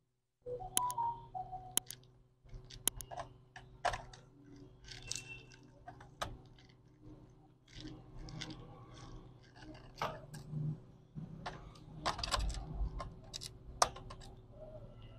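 Irregular small clicks, taps and scrapes of a screwdriver and fingers on screws and parts inside an opened HP G4 laptop's plastic base, as internal components are unscrewed and lifted out. A faint steady hum runs underneath.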